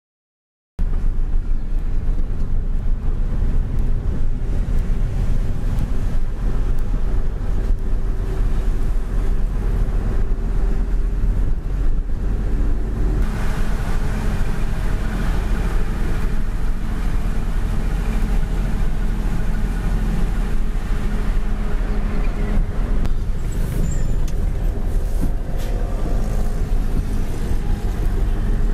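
Mitsubishi Fuso self-loader truck's diesel engine running under way, heard inside the cab as a loud, steady low rumble that starts abruptly about a second in. A few short clicks near the end.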